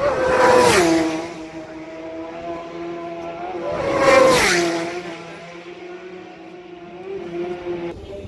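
Two racing superbikes passing flat out about three and a half seconds apart, each a loud engine note that drops sharply in pitch as it goes by, with the engine note of the bikes carrying on down the road between and after them.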